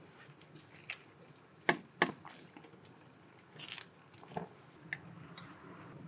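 Crisp lettuce and cabbage leaves crunching and rustling as they are handled, with a few sharp clicks from wooden chopsticks, the loudest two about two seconds in, and a short rustle near the middle.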